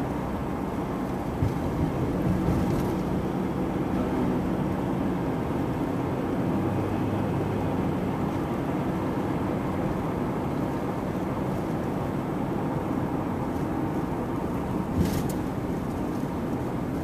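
Steady low rumble of a car's engine and tyres heard from inside the moving car, with one short sharp click about fifteen seconds in.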